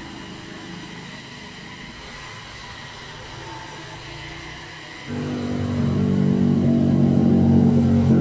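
Motorcycle traffic on a bend: a low, steady engine rumble at first, then about five seconds in a sudden, much louder engine note from a sport bike leaning through the curve, held at fairly even revs.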